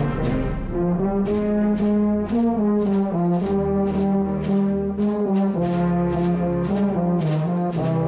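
Concert band playing, the euphonium close by carrying held low brass notes that shift pitch every second or so over a steady pulse of accented notes.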